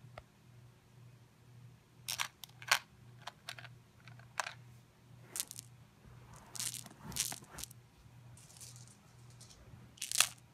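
Irregular clicks and light rattles of hard-shelled M&M candies knocking against each other and against a plastic toy shark as it is pushed through them. The clicks come in clusters, the busiest around seven seconds in and a sharp one near the end, over a faint low hum.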